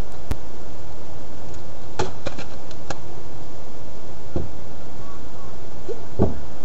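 Knocks and thumps on a wooden board fence as someone grips its top and climbs it, the heaviest thump near the end, over a loud steady noise.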